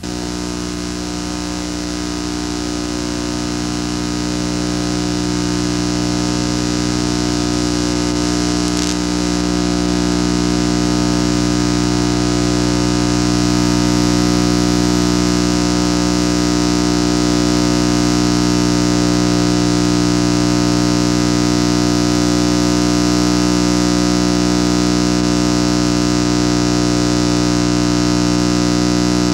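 Wind tunnel fan running steadily: a drone of several fixed tones over broad hiss. It starts abruptly and swells over the first few seconds, then holds level.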